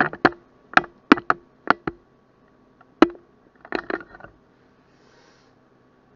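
Handling noise as the camera is carried and set down on a kitchen counter: a quick series of sharp knocks and clicks, some with a short ring, ending in a brief rattle about four seconds in.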